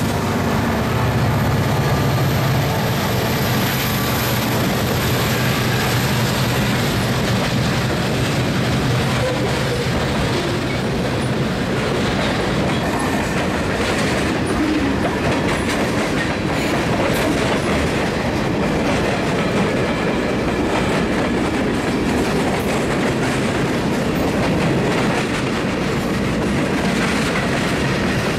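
Mixed freight train rolling past on the climb. The trailing Union Pacific EMD diesel locomotive's engine drone fades over the first several seconds. The steady rumble and clickety-clack of tank cars, gondolas and covered hoppers on jointed rail follows.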